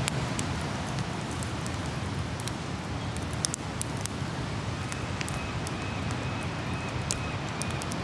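Small wood campfire crackling, with sharp irregular snaps and pops, over a steady low rumble of ocean surf.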